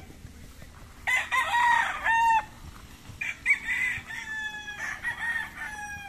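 Gamecocks crowing: one loud crow about a second in, then a longer, fainter crow from about three seconds in that trails off gradually.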